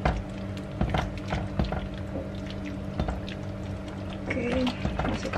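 Silicone spatula stirring vegetables and broth in a stainless steel frying pan, with a series of short knocks against the pan. Near the end, cornstarch slurry is poured into the simmering broth, a little at a time, to thicken it.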